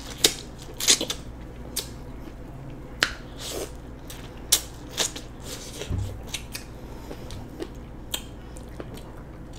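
Biting and chewing kernels off an ear of corn on the cob, close up: irregular sharp crunches and wet mouth clicks every half second to a second.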